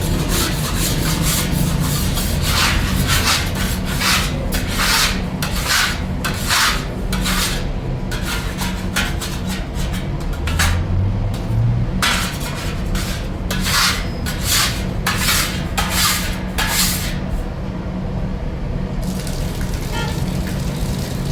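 Rhythmic back-and-forth rasping strokes, a little under two a second, that stop near the end, over a steady low hum.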